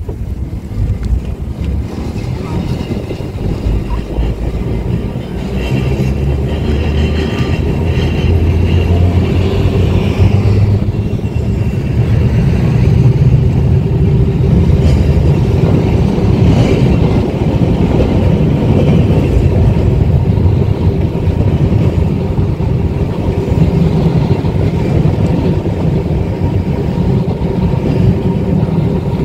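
1934 English Electric boat tram running along street rails at speed, a steady heavy rumble of wheels and running gear. It grows louder about five seconds in and then holds steady.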